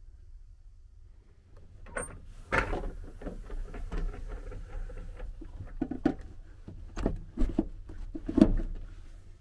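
Roll-down privacy blind on a capsule-hotel pod's entrance being pulled down by its handle: a string of rattles and knocks, loudest a couple of seconds in and again near the end as the bottom rail comes down.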